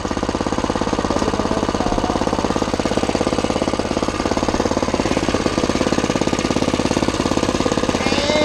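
Harbor Freight Predator 6.5 hp (212cc) single-cylinder four-stroke engine on a motorized bicycle, idling with a rapid, even chugging.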